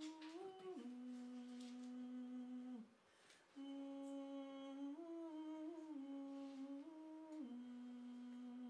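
A voice humming a slow tune through a microphone. Long held notes step up and down, with a short break about three seconds in.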